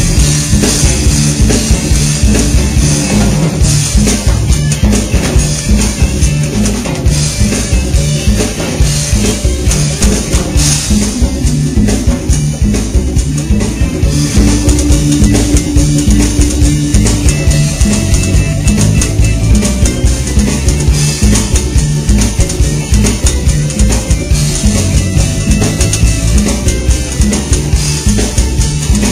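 Live rock band playing an instrumental passage: a busy drum-kit beat with bass drum and rimshots, with guitar.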